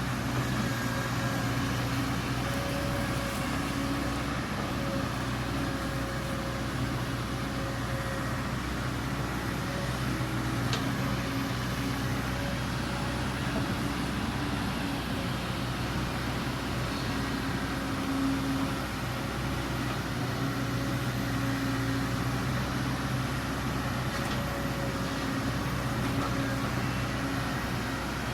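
Excavator's diesel engine running steadily, with a constant low hum and little change in pitch.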